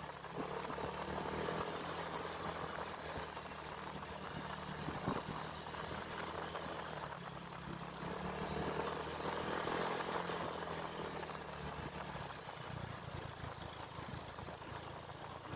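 An engine running steadily with a low hum, under a steady rushing hiss.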